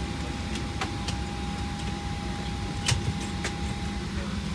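Steady low hum of a Boeing 737-800's cabin ventilation, with a thin steady whine that fades near the end. Over it, a few sharp clicks and taps as the leather headrest and seat are handled, the loudest nearly three seconds in.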